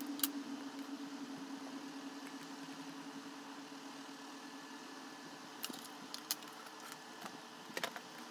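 Small sharp clicks and ticks of thin electrical wires and a plastic wire-stripping tool being handled as insulation is stripped off the wires. There is one click just after the start and a cluster of them in the second half, over a low steady hum that slowly fades.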